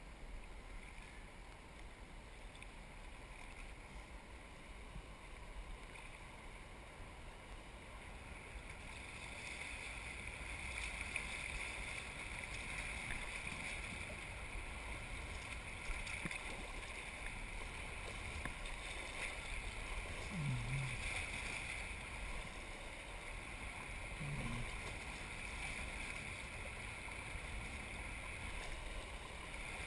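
Rushing, splashing water of a shallow river riffle as a kayak runs through it, the rush growing louder about a third of the way in as the boat enters the fast water.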